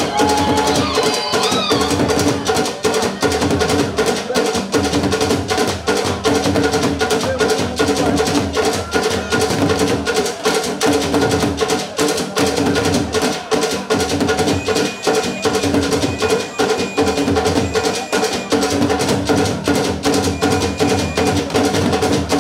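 African drum ensemble playing a fast, dense rhythm, several tall standing drums struck with sticks; a few brief high held tones sound in the second half.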